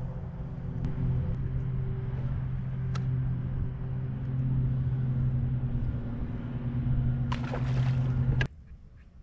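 Bass boat's outboard motor running steadily with a low, even hum. The sound cuts off suddenly near the end.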